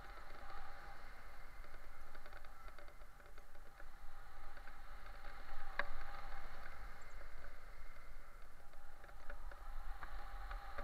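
Muffled wind rush on a helmet-mounted camera in paraglider flight, with scattered light ticks and one sharp click about six seconds in.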